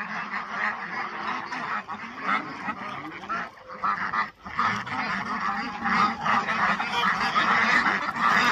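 A flock of domestic ducks quacking in a dense, continuous clamour, louder in the second half as a man reaches in among them to catch one.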